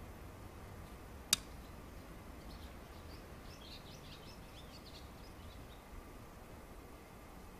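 Small birds chirping faintly over a low outdoor background hum, in a flurry of short high calls from a few seconds in to about six seconds. Early on there is one sharp click.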